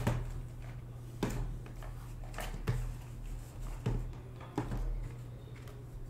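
Shrink-wrapped Topps Tier One card boxes being picked up and set down on a table. About six sharp knocks come at irregular intervals over a low steady hum.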